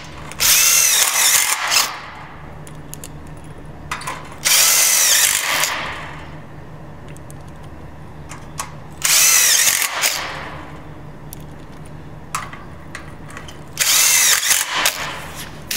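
Cordless drill driving self-tapping screws into galvanized steel stud framing: four short runs of about a second and a half each, a few seconds apart, the motor whine rising and falling as each screw bites and seats.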